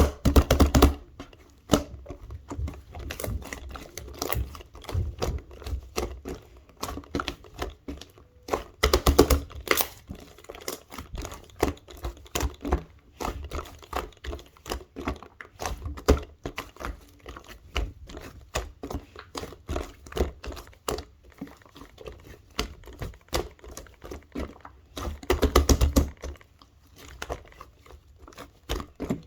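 Gray clay slime being squished and pressed by hand, giving rapid irregular clicks and small pops, with louder bursts of crackling about nine seconds in and again near the end.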